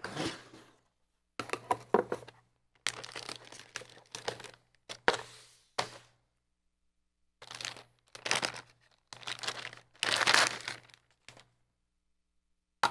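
Motherboard packaging being opened and handled: plastic wrapping and cardboard crinkling and rustling in several irregular bursts, with short pauses and a couple of sharp clicks in between.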